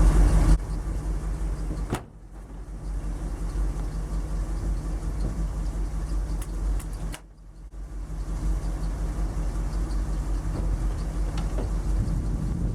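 A 1980 Dodge D150 being cranked over by its starter in three bursts with short pauses between them, the engine not catching. The owner takes the cranking as a sign that the battery terminals need cleaning and tightening.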